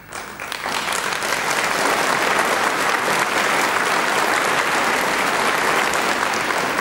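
Theatre audience applauding, building up over the first second and then holding steady.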